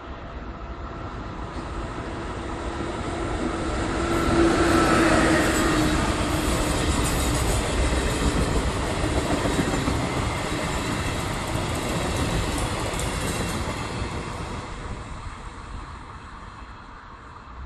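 E464 electric locomotive with six double-deck coaches passing at speed. The rush of wheels on rail builds to a peak about four seconds in, with a brief humming tone as the front goes by, holds as a steady rumble and clatter while the coaches pass, then fades as the train draws away.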